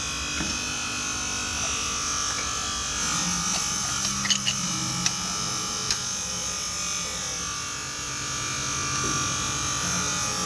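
A steady mechanical buzz with several high, fixed tones, and a few sharp clicks about four to six seconds in.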